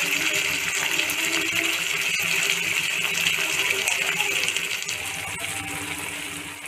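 Thick egg curry bubbling and sputtering in a pan on the stove: a steady crackly hiss of popping bubbles that eases slightly about five seconds in.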